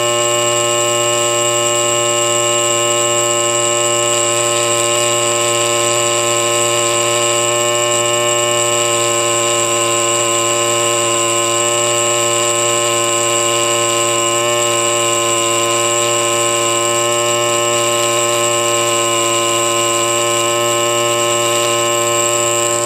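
Pneumatic air scribe running continuously with a steady, high-pitched buzz, its stylus chipping away concretion rock over a fossil crab's shell.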